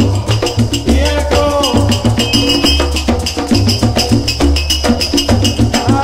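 Background music with a steady percussive beat, shakers and a repeating bass line.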